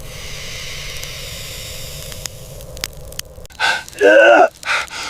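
Open fire crackling, with a few sharp pops, for about three seconds; then a person starts whimpering loudly in pain after a burn.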